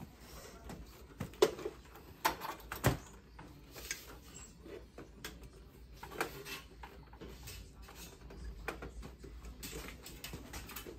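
Scattered light knocks and clicks of cables being handled against a UPS cabinet's sheet-metal frame, with a few sharper knocks in the first three seconds and again about six seconds in.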